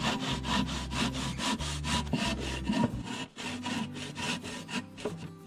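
Hand saw cutting through an aerated concrete block with rapid, regular back-and-forth strokes that stop near the end.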